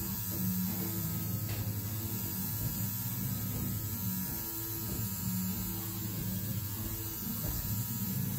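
Pen-style tattoo machine running steadily on skin, a continuous buzzing hum.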